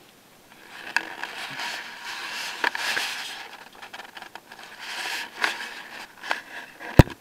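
Handling noise from a camcorder being moved and fiddled with: fabric rubbing and scraping over its microphone, with a few light clicks. One sharp click comes near the end as the external microphone is turned on.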